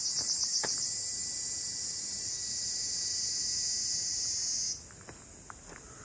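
A cicada singing: a loud, high, pulsing buzz that cuts off abruptly about three-quarters of the way through, over soft footsteps on a dirt trail.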